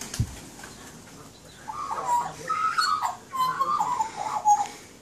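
Australian magpies calling, a run of warbling, fluting notes that starts about one and a half seconds in and goes on for about three seconds. A soft low thump right at the start.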